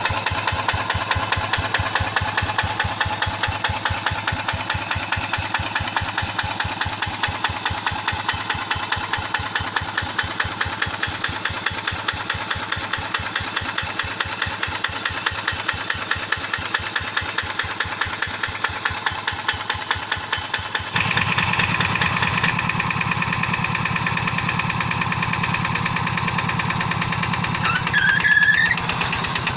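Diesel engine of a Quick G1000 two-wheel hand tractor running with a fast, even chug. About 21 seconds in the sound abruptly becomes louder with a heavier low rumble, and near the end there is a brief rising squeal.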